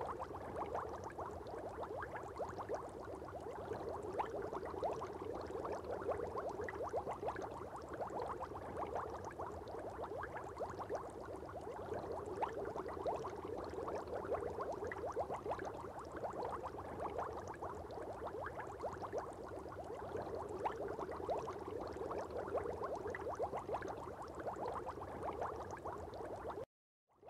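Aquarium water bubbling: a steady, dense crackle of many small bubbles popping. The sound cuts out briefly near the end.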